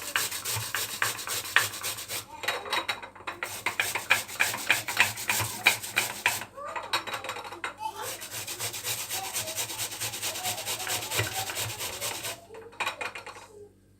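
An onion being grated by hand on a kitchen grater: repeated rasping strokes with a couple of short pauses, stopping shortly before the end.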